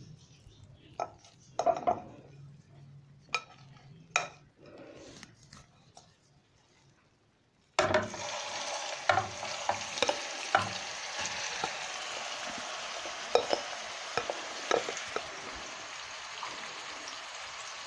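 A few light knocks and clicks, then about eight seconds in, marinated minced beef hits preheated oil in a kadai and starts sizzling suddenly. The frying hiss stays loud and even, with sharp crackles and pops through it.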